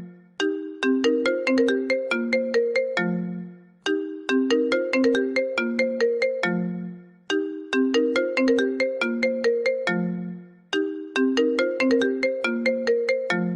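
iPhone ringtone playing on a loop: a quick melody of struck notes, the same phrase starting four times, each time ending on a lower held note.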